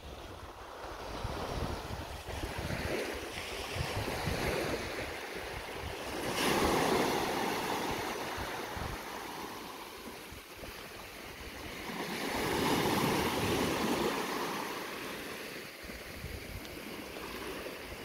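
Small sea waves breaking gently on a sandy beach and washing up the shore. The surf swells louder twice, about six seconds in and again about twelve seconds in.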